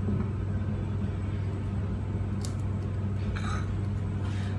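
Steady low electrical-sounding hum in a kitchen, with a few light clicks of crockery as a plate is picked up about halfway through and near the end.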